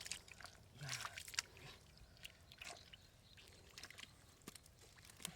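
Faint, scattered splashes and sloshing of shallow water, with a brief murmur of voice just under a second in.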